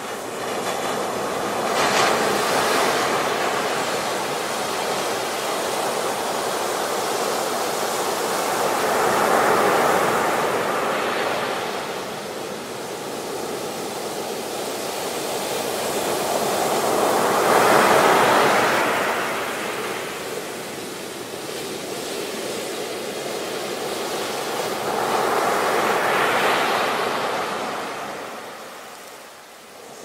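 Ocean surf: waves breaking and washing up the shore in a steady rush, swelling to a crash about every eight seconds (four times) and easing back between them.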